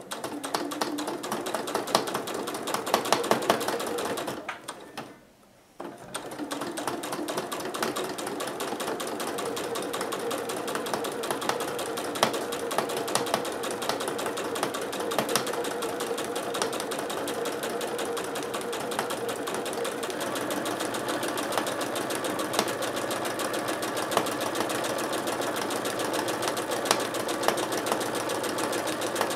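Janome electric sewing machine stitching a straight quilting seam through fabric and batting, a fast steady run of needle strokes. It stops briefly about four and a half seconds in, then starts again and runs evenly.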